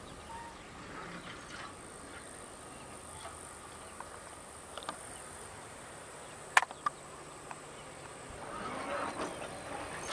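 Insects chirring steadily in tall grass, over faint scattered knocks from an EKG-4.6 electric rope shovel swinging its loaded dipper. There is a single sharp click about six and a half seconds in. Near the end a rising rush of noise comes as soil is dumped from the dipper into a dump truck's bed.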